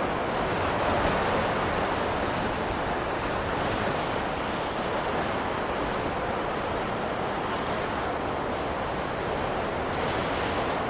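Wind blowing steadily: a continuous rushing noise with no gusts or breaks.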